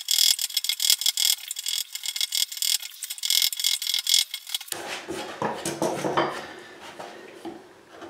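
Hand tools shaping a wooden guitar neck at the headstock transition: a fast run of short scraping and cutting strokes, then, a little over halfway through, a different tool working the wood with slower, fuller strokes.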